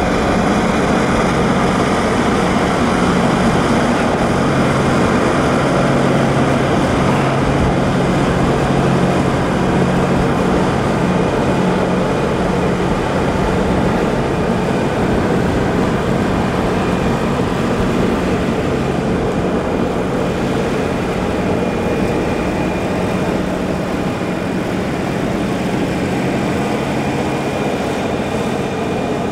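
Piston engine of a Second World War Curtiss fighter running steadily at a constant, low pitch, with no rise or fall.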